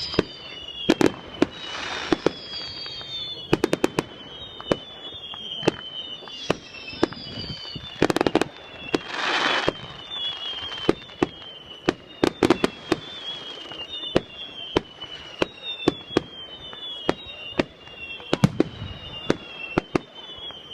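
Fireworks display: a rapid, irregular string of sharp bangs, with a few longer crackling hisses among them. Thin high whistles falling in pitch recur every second or two over the bangs.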